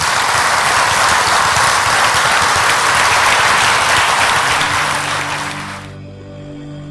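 Audience applauding, loud and sustained, dying away about five to six seconds in as steady music comes in underneath.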